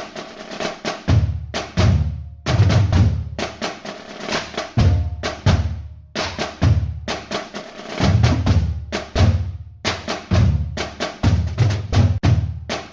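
Drum music: a fast, busy beat of snare and cymbal hits over heavy bass-drum thumps that come roughly once a second.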